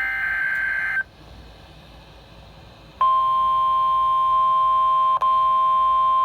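Emergency Alert System signal from a National Weather Service broadcast. The last data-burst header, a buzzy two-tone squawk, ends about a second in. After a pause of about two seconds the steady single-pitch attention tone starts and holds, heralding a severe thunderstorm warning.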